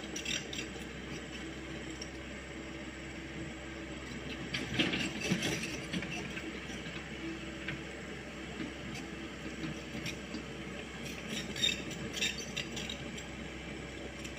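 Komatsu PC78US mini excavator's diesel engine and hydraulics running steadily, with bursts of rattling clatter about five seconds in and again near the end as soil and stones are dropped into a steel dump-truck bed.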